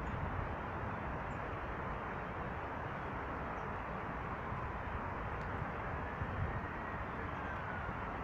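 Steady outdoor background noise, like a low rumble of distant traffic. A faint tone rises and then falls late on, and there are a few faint high chirps.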